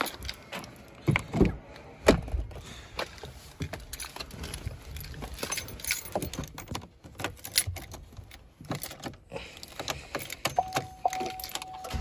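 Scattered knocks, clunks and key jangling from someone getting into a pickup truck's cab and handling the keys, with two louder thumps in the first couple of seconds. Near the end the truck's electronic warning chime starts dinging, as it does with the key in before the engine is started.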